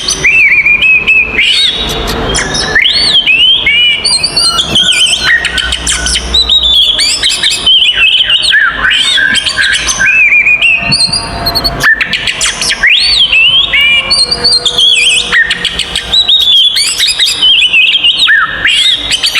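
Oriental magpie-robin (kacer) singing a loud, continuous string of rapid, varied whistles and chirps. This is its agitated 'fighting' song, the kind used as lure audio to provoke other magpie-robins.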